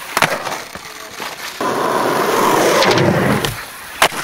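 Skateboard landing with a couple of clacks just after the start, then its wheels rolling over rough asphalt, a steady rolling noise that swells through the middle for about two seconds. A single sharp clack of the board comes just before the end.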